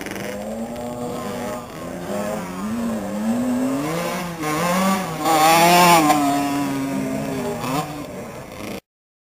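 Youth motocross bikes' engines revving up and down as they ride the track, loudest about five to six seconds in. The sound cuts off suddenly near the end.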